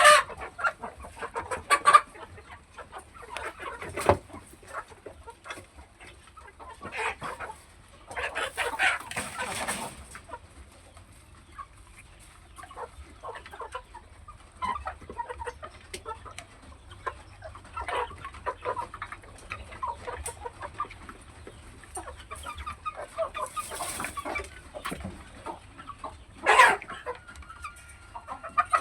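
Chickens clucking and calling irregularly, with a few louder squawks scattered through, the loudest near the end.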